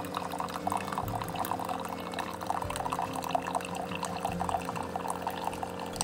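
Keurig single-cup coffee maker brewing: a thin stream of coffee pours and splashes into a ceramic mug, over a steady hum from the machine.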